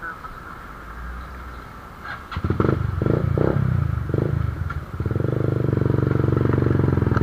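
Italika 170Z motorcycle's single-cylinder engine. Fairly quiet at first; about two seconds in it comes up loud in a few short revs, and from about five seconds it runs steadily under throttle as the bike pulls away.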